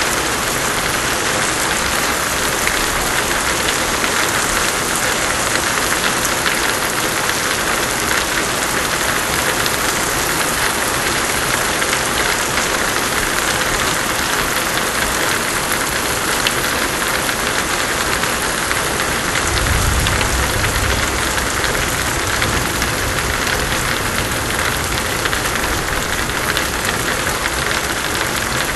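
Heavy rain pouring steadily, with a low rumble of distant thunder swelling up about twenty seconds in and trailing off slowly.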